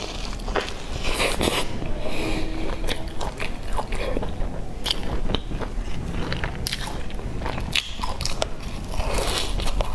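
Close-miked biting and chewing of a chocolate-chip bread pastry: a steady run of wet mouth clicks and light crunches.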